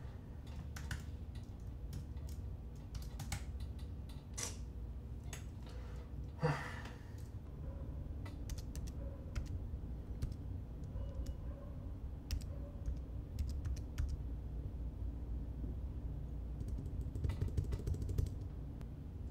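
Typing on a computer keyboard: irregular keystroke clicks over a steady low hum. A brief louder sound stands out about six and a half seconds in.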